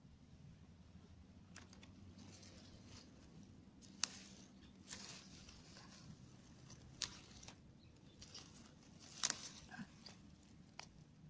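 Grass and gotu kola leaves rustling as a hand picks the plants, with several sharp snaps of stems breaking, the loudest near the end.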